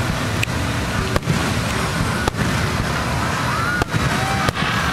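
Aerial festival fireworks going off: a continuous low rumble of bursts with about five sharp bangs standing out.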